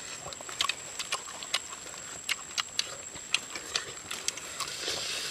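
Eating sounds: irregular sharp clicks and smacks of chewing and nibbling meat off small bones held in the fingers.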